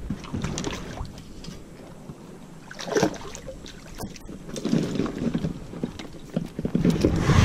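Small inflatable PVC boat being boarded and pushed off with a rod and oar in hand: scattered rustles and knocks of gear against the boat, a louder knock about three seconds in, and noise building near the end as the boat moves onto the water.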